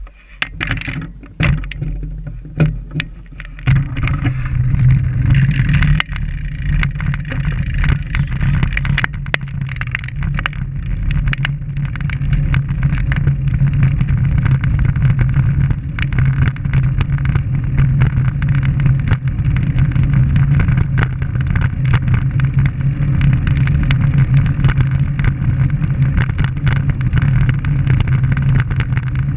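Wind rushing over the microphone of a camera mounted on a moving road bike, with road and tyre noise: a steady, loud rumble once the bike is under way about four seconds in, after a few clicks and knocks as it sets off.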